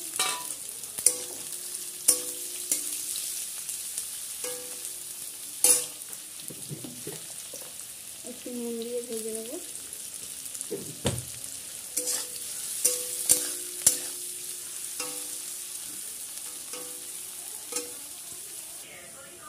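Sliced onions sizzling steadily as they fry in mustard oil in a steel kadai, being browned into beresta. A steel spatula clinks and scrapes against the wok every so often as they are stirred.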